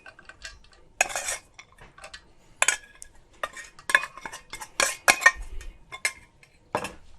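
A metal utensil scraping and clinking against a pot or bowl as fried bacon cubes are tipped into mashed potatoes and worked in. The sound comes as a dozen or so short, irregular scrapes and clicks.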